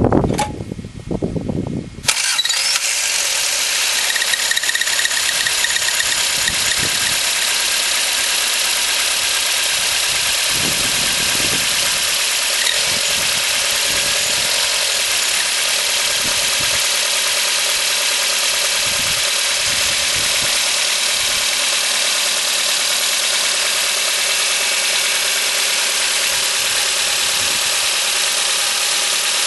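A Toyota Corolla E10 running steadily, the sound setting in abruptly about two seconds in. It is a steady hiss with a faint high tone running through it, in a car filmed to show a squeak.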